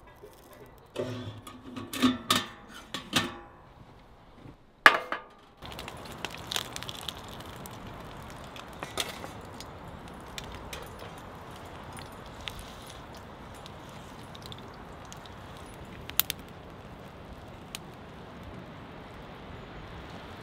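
A few knocks and clinks, like cooking gear being handled. Then, about five seconds in, a steady rush of strong wind through the forest trees takes over and holds level.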